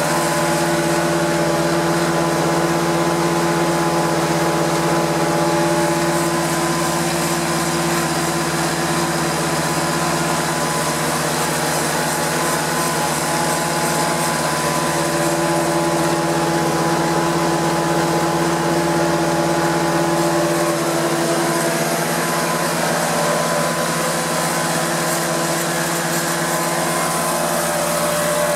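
Prochem Performer 405 truck-mount carpet cleaner running: its Nissan A15 engine and Sutorbilt 4.5 blower make a steady, even drone with constant tones and no change in speed.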